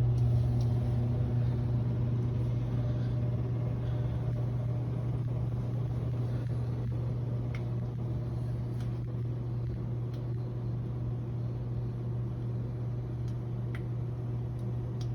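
HVAC unit giving off a steady low electrical hum with a few faint clicks, easing slightly in loudness over the first several seconds.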